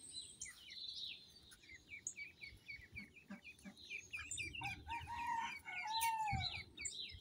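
Indian runner ducklings peeping, a rapid run of short, high, falling peeps. From about four and a half seconds in, a longer, lower bird call rises and then falls in pitch for about a second and a half.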